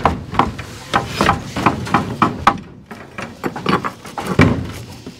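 Irregular knocks and clanks of steel reinforcing bars being lifted and shifted on a bridge-deck rebar mat, about two to four knocks a second.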